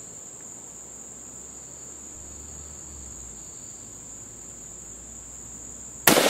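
A steady high-pitched drone of insects, then near the end a single sharp, loud shot from a Swiss K31 straight-pull rifle in 7.5x55mm.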